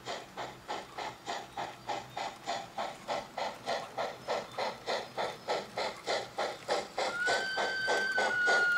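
Steam locomotive chuffing at a steady beat, about three to four chuffs a second. About seven seconds in, a steady whistle starts and keeps blowing over the chuffing.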